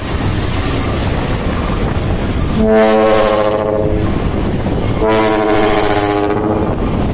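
Dump truck's air trumpet horn sounding two blasts, each about a second and a half long, over the steady rumble of the truck's diesel engine running.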